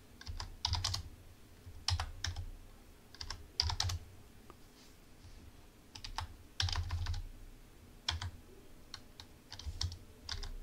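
Computer keyboard typing in short bursts of a few keystrokes, with pauses of a second or more between bursts.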